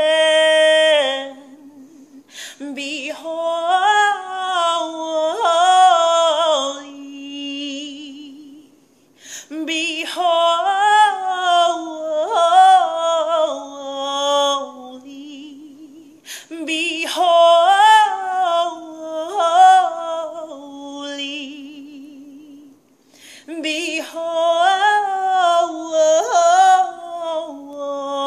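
A woman singing a scripture song unaccompanied: four similar melodic phrases of about five seconds each, each rising and then falling in pitch, with short pauses between them.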